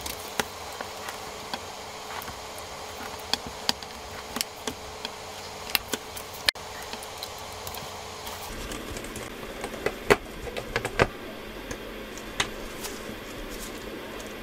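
Scattered light clicks and taps of metal tweezers and fingertips on the opened iPhone SE 2020's internals, as the display's flex cable connectors are pressed onto the logic board. A steady hum runs underneath.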